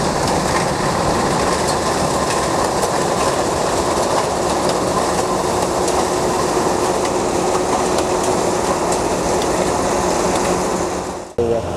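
Kubota DC-93 combine harvester running at work close by: a steady, dense mechanical clatter from its diesel engine and its threshing and cutting parts. It cuts off suddenly just before the end.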